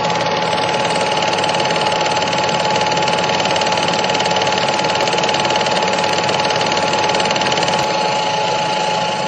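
Steady, loud mechanical running noise with a constant whine held on one pitch, beginning to fade near the end.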